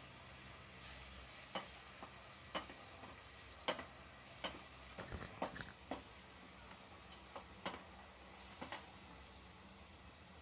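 Plastic spatula stirring pork cubes in an aluminium pot, knocking and scraping against the pot's side and bottom in short, irregular strokes, several in quick succession near the middle. A faint sizzle of the pork browning in oil sits underneath.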